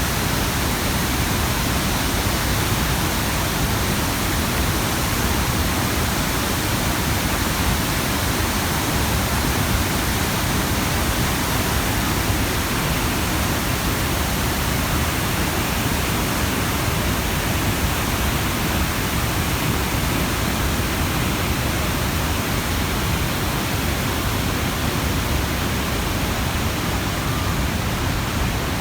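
Iguazu Falls' cascading water: a loud, steady rush of falling water that holds even throughout.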